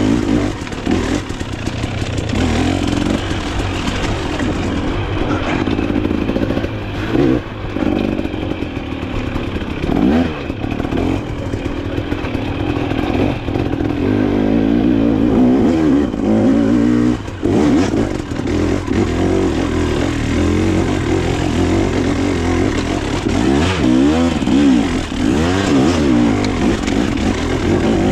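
Off-road dirt bike engine running under constant throttle changes, its pitch rising and falling as the rider shifts and revs through the course, with clattering from the bike over rough ground.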